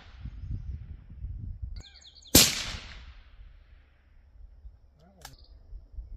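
Suppressed rifle shots from a Ruger 77/17 bolt-action rifle in .17 Hornet. A sharp crack comes about two seconds in and dies away over about a second, and a second shot fires right at the end.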